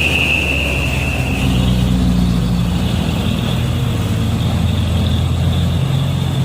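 Heavy truck engine running steadily, with a high whine that fades out about a second and a half in.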